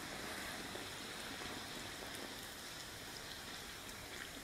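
Hot oil sizzling faintly and steadily around a puffed bhatura deep-frying in a kadhai.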